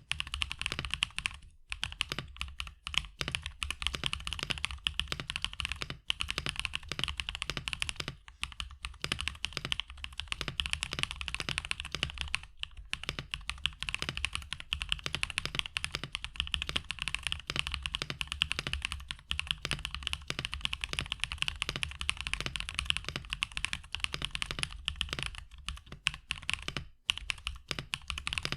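Fast, continuous typing on a mechanical keyboard fitted with Badseed Tactile switches: factory-lubed, JWK-made long-pole tactile switches with a 63.5 g two-stage spring. Each keypress gives a quick click, broken by a few short pauses.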